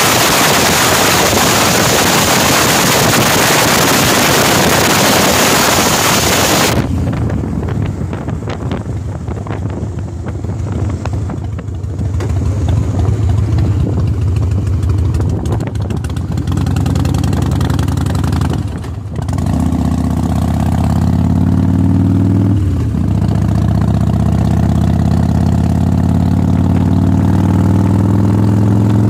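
Heavy wind rushing over the microphone on a moving motorcycle, cut off suddenly after several seconds. Then the motorcycle's engine is heard accelerating, its pitch climbing and dropping back at two gear changes, with wind noise underneath.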